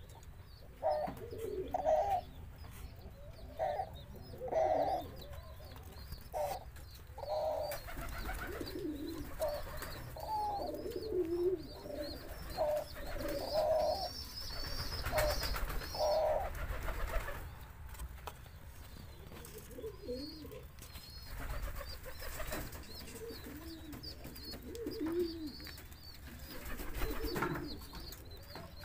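Caged Eurasian collared doves cooing over and over in short repeated phrases. The notes are higher and more frequent in the first half, and lower and softer later on.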